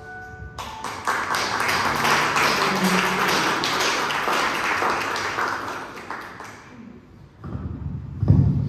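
Congregation applauding, a dense patter of hand claps that starts about half a second in and dies away by about six and a half seconds. A loud low bump near the end.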